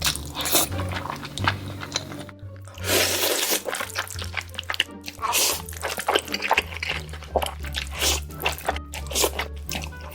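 Background music with a steady bass line, over close-miked eating sounds: a run of short wet smacks and slurps, the longest about three seconds in, as someone eats noodles.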